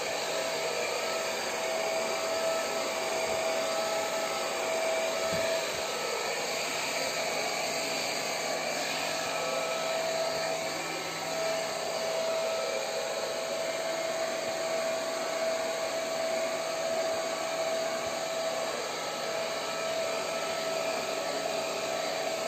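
Handheld electric hair dryer blowing steadily: an even rush of air over a constant motor whine.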